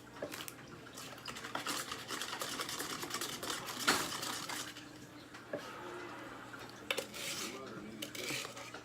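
Stirring a thick slime-gel mixture in a cup, a utensil scraping around the cup with a few sharp clicks against its side.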